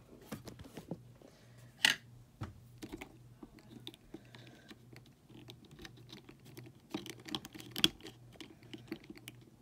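Small plastic clicks and taps from an S.H. MonsterArts Godzilla 1962 action figure being handled while its jaw piece is pressed into place, with two sharper clicks, one about two seconds in and one near the end, over a faint low hum.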